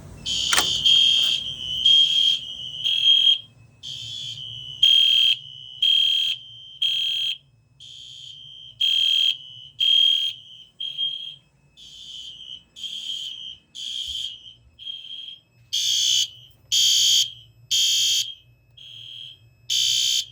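Several fire alarm horn-strobes, System Sensor SpectrAlert and EST Genesis units, sounding together in loud, high-pitched horn pulses about once a second, with a few short gaps. The system has been set into alarm from a BG-12 pull station, and a sharp click comes just as the horns start.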